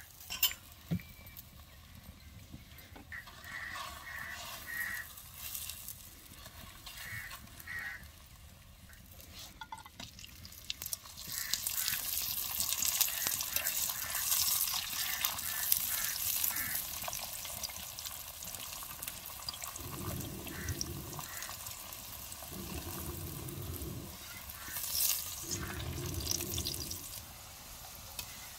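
Stuffed paratha frying in oil on a cast-iron tawa over a wood fire: a steady sizzle that grows much louder about eleven seconds in. A few short honk-like calls come before it, and three low rumbles sound in the later part.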